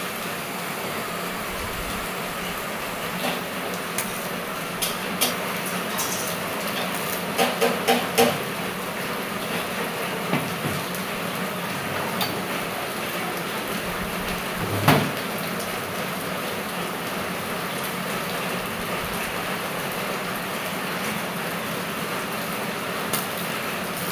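Steel pieces clinking and knocking against a steel welding table as they are set in place, with one louder metal knock about fifteen seconds in, over a steady hum.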